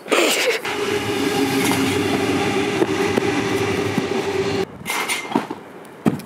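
Train passing on the tracks beside the yard: a loud, steady rumble with a steady whine through it, which cuts off suddenly about four and a half seconds in.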